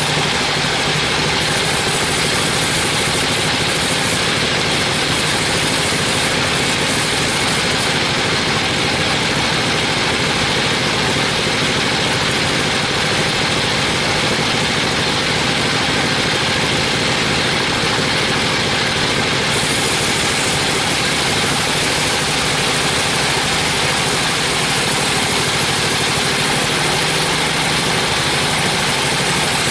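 A 42-inch band sawmill running steadily while its blade cuts lengthwise through a teak beam: an even, unbroken machine noise with the hiss of the cut.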